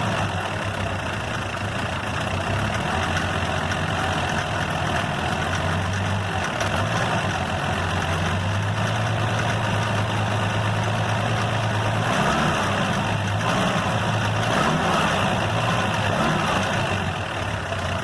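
Chevrolet Opala engine with triple Weber carburettors running at idle, its revs shifting slightly a couple of times in the second half. It carries a small knocking noise that the owner suspects is play in a connecting-rod bearing.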